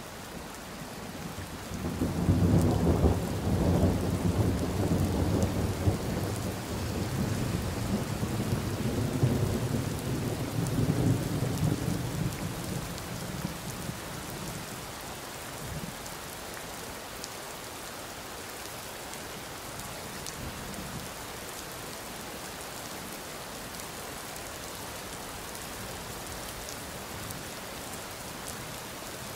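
Steady rain falling, with a long roll of thunder that starts about two seconds in, rumbles for about ten seconds and dies away, leaving the rain alone.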